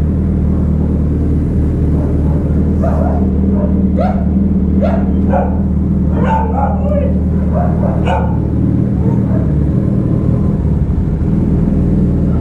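Suzuki Hayabusa motorcycle's inline-four engine idling steadily, while a dog barks about eight short barks between about three and eight seconds in.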